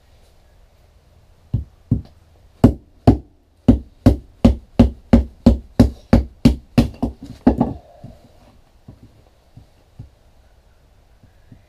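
A wooden baton knocks on the spine of a Delta Whiskey Farnhawk knife to drive it down through a piece of wood. There are about eighteen sharp knocks, speeding up to about three a second, then a few light taps.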